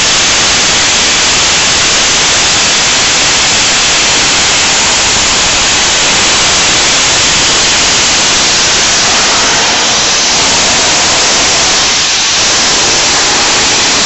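Steam locomotive Flying Scotsman, an LNER A3 Pacific, standing and blowing off steam: a very loud, steady hiss.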